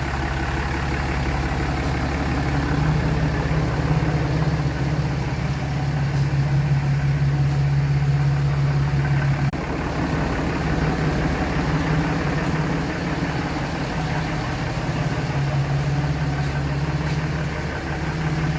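Diesel dually pickup's engine idling steadily with its stock emissions equipment and exhaust still on, before a delete kit.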